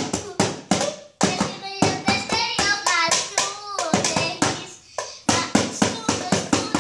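A young boy singing, with a fast run of sharp hand taps, about four a second, keeping a beat under his voice; both pause briefly about five seconds in.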